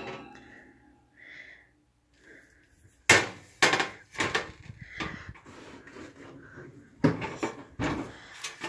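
A metal baking sheet is taken out of the oven and set down on an electric stovetop: a string of sharp knocks and clanks, starting about three seconds in and coming again near the end.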